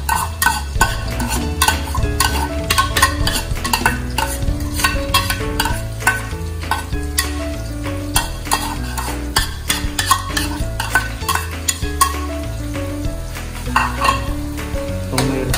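Chopped bird's eye chilies (siling labuyo) sizzling and frying in hot oil in a stainless steel wok, with the clicks and scrapes of a metal spoon stirring against the pan. Background music with a steady bass line plays underneath.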